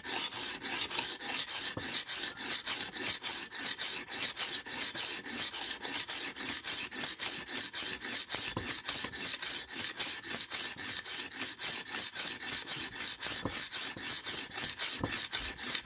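A steel knife blade being stroked back and forth on a cheap whetstone, a steady rasping scrape at about three strokes a second, raising a burr on the edge.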